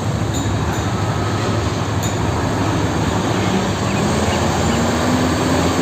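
A vehicle's engine and rolling noise, a steady rushing rumble with a low hum, with a faint tone rising slightly near the end.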